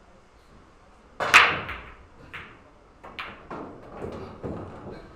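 Pool balls being struck: a sharp clack of cue and ball about a second in, the loudest sound, then a string of lighter knocks over the next few seconds as the balls hit each other and the cushions.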